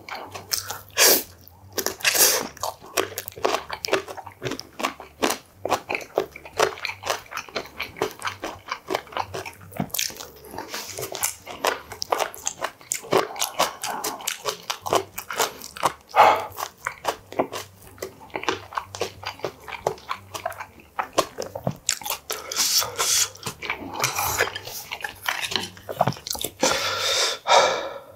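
Close-miked eating sounds of a man chewing steamed and braised stingray with rice: a dense run of short wet clicks and crunches, with a few louder bites.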